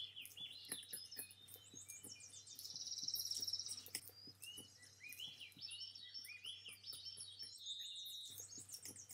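Faint songbirds chirping and calling, with short high notes throughout and a rapid high trill about three seconds in.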